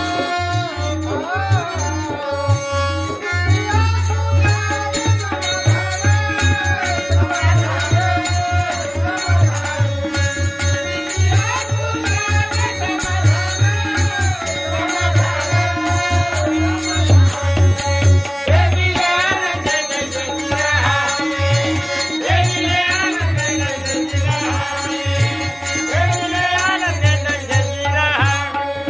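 Marathi devotional bhajan music: a melodic vocal line over a steady drum beat and constant rhythmic jingling of hand cymbals.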